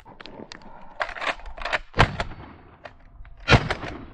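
Two shotgun shots about a second and a half apart, each a sharp report with a short echo, with several fainter sharp clicks before and between them.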